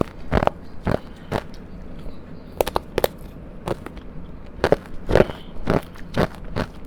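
Close-up crunching of powdery frozen ice being bitten and chewed: a string of short, crisp crunches, roughly two a second, with a brief lull about two seconds in.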